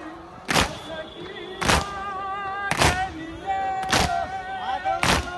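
Loud, sharp beats struck evenly about once a second, with voices chanting between the beats.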